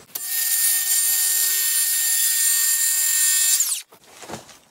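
Power circular saw cutting across a timber rafter at a 5-degree angle. The saw starts abruptly and runs steadily through the wood for about three and a half seconds, then the motor winds down with a falling whine, followed by a few light knocks.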